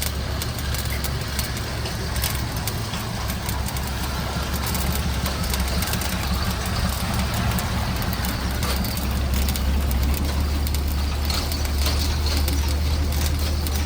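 A motor or engine running steadily with a low hum, with scattered clicks and knocks over it; it grows slightly louder partway through.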